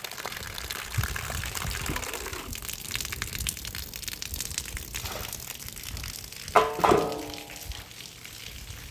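Water running and splashing, with many small spatters. A brief loud voice-like call cuts in about seven seconds in.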